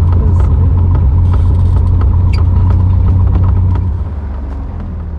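The Cessna's engine drones steadily with a deep, low rumble, then settles to a lower level about four seconds in.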